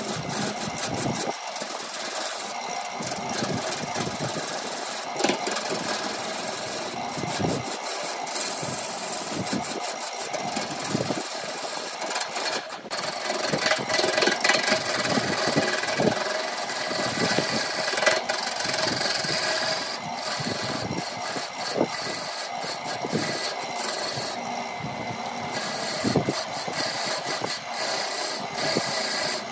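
Wood lathe running while a hand-held turning tool cuts into a spinning wooden blank, throwing off shavings and chips. It makes a continuous rasping, scraping cut that is uneven in strength.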